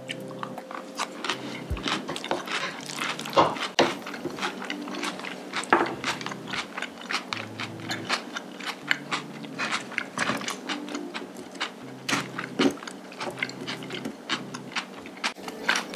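Close-up eating sounds: chewing with a dense, irregular run of crisp crunching clicks from bites of battered, fried sweet and sour pork.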